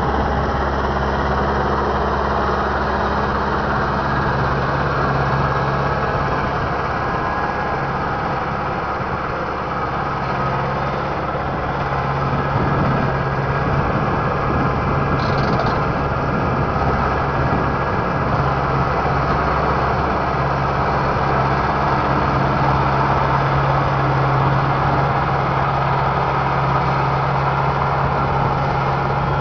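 Farm tractor's diesel engine running steadily while it pulls a Miedema CP42 potato planter across a field, with the clatter of the machinery. A brief high sound comes about halfway through.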